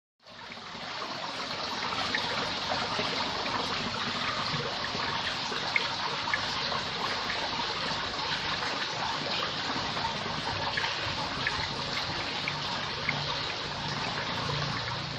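Running water, a steady trickling and splashing that fades in at the start.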